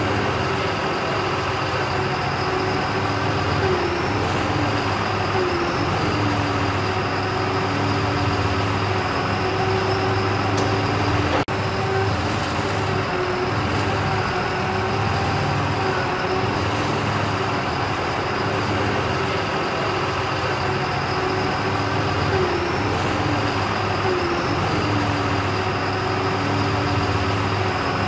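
A large marina forklift's engine running steadily as it lifts a boat into a dry-stack rack. Its pitch wavers briefly a few times as it works.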